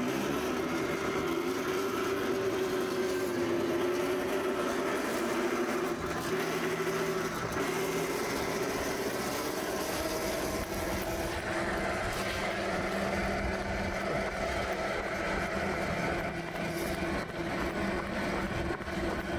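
Homemade 48-volt, 2000-watt electric go-kart driving along a tarmac lane: a steady motor whine over the rumble of its knobbly tyres. The whine wavers in pitch in the first half, then steadies.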